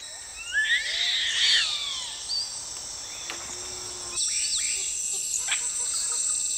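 Tropical forest ambience: insects chirring steadily on a high note, louder from about four seconds in. In the first two seconds there is a burst of high squealing animal calls, and scattered bird chirps follow.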